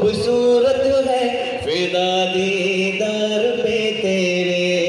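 A man singing through a microphone and stage PA, holding long drawn-out notes that step between pitches.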